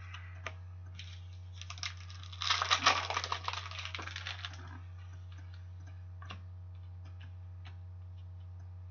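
Hockey trading cards being handled: a couple of light taps near the start as a card is laid down, then about two seconds of rapid clicking and flicking as cards from the pack are thumbed through, then a few faint ticks. A steady low hum runs underneath.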